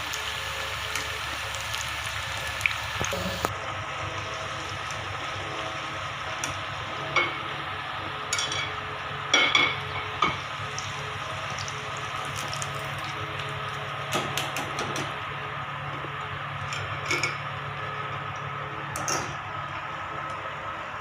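Batter-coated spine gourd pieces sizzling as they fry in hot oil in a pan. A spatula knocks and scrapes against the pan now and then as the pieces are turned.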